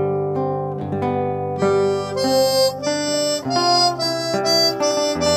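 A harmonica plays a slow, hand-cupped melody over an acoustic guitar accompaniment. The notes are held at first, then become shorter and more separated from about a second and a half in.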